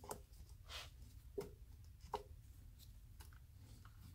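A few faint clicks and rustles of gloved hands handling wires inside a compressor's electrical box, over a low steady hum.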